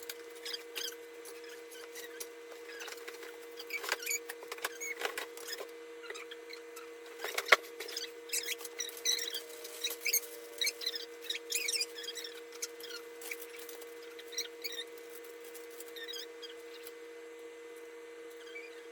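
Scattered clicks, rustles and knocks of office chair parts and packaging being handled during assembly, with one sharp knock about seven and a half seconds in, over a steady hum.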